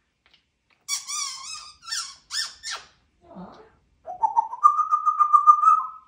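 African grey parrot calling: a run of short, wavering squeaks about a second in, then a long squeak that rises in pitch and holds steady.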